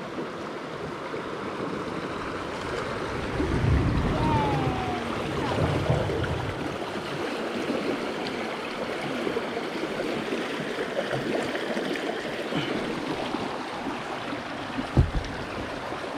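River water rushing and splashing steadily around a raft that is stuck on a rock in the current, with a few low thuds about four to six seconds in and a single sharp knock near the end.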